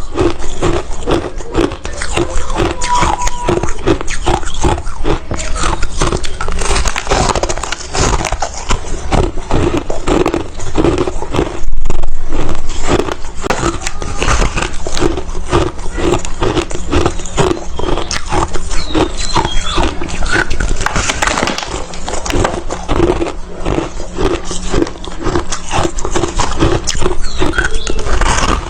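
Close-miked crunching of ice being bitten and chewed, a dense run of crunches in a steady chewing rhythm, with one louder crunch about twelve seconds in.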